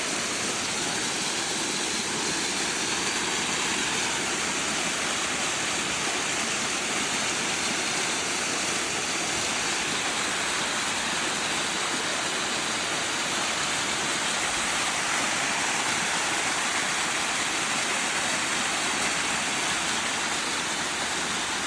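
Waterfall rushing: a steady, even roar of falling water that holds at the same level throughout.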